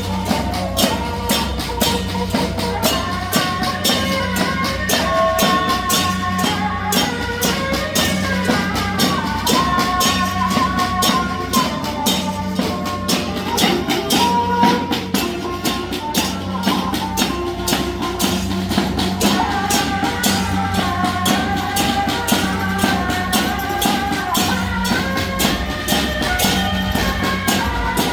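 Music with a melody carried over dense, fast percussion, running steadily throughout.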